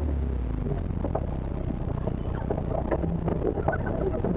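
Off-road 4x4's engine running at low speed while the vehicle rolls over a rough dirt trail, with scattered short knocks and rattles from the body and suspension.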